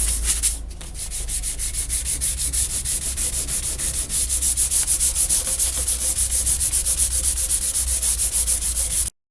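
Hand sanding in rapid, even back-and-forth strokes, several a second, with a brief pause about half a second in. It stops abruptly near the end.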